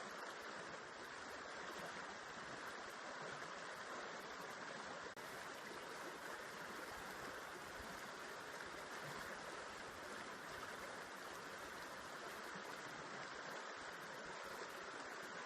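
Steady rush of a flowing river, an even water noise that never lets up, with a momentary dropout about five seconds in.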